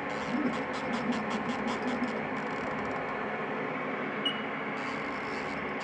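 CNC machining centre humming steadily while its Z axis is jogged down toward the tool setter, with runs of rapid clicking in the first two seconds and again near the end, and one short high beep about four seconds in.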